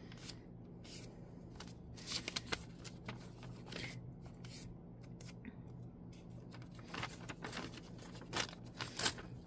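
Faint rustling and crinkling of paper sheets being handled and pulled apart, in short scattered crackles.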